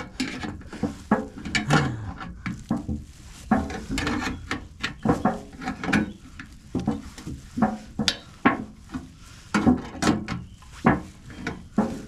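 Irregular clatter of knocks and clinks, as of dishes, pans and utensils being handled.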